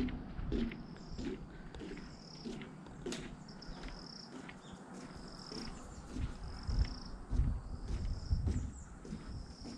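An insect calling outdoors in a short high-pitched buzz, repeated about once a second. Scattered clicks and low thumps of handling or movement are heard beside it.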